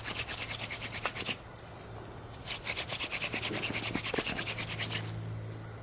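Hand drill for fire by friction: a goldenrod spindle spun fast between the palms, its tip grinding in the notch of a wooden fireboard. It makes rapid, even rubbing strokes, pauses for about a second, then runs again until near the end, building up the hot dust that forms a coal.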